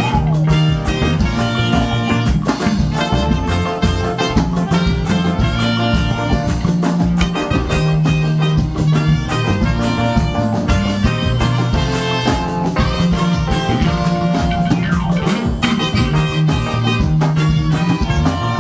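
Live band music with a steady, quick drum beat, bass and guitar, playing an instrumental stretch of an upbeat praise song.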